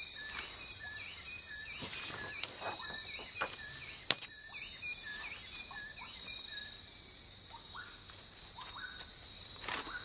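Tropical forest ambience: a dense, steady chorus of insects, with many short chirping calls from small animals scattered over it and a click about four seconds in.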